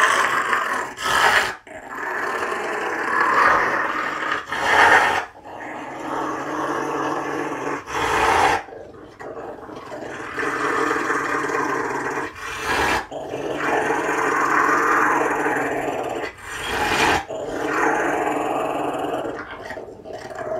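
A Rottweiler's rumbling, growl-like 'purr': long drawn-out rumbles broken every few seconds by a short, sharp breath. This is the affectionate rumble the dog makes while being hugged, not an aggressive growl.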